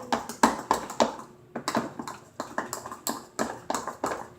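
A utensil stirring a thick glue and shaving cream slime mixture in a bowl, knocking and clicking against the bowl about four times a second.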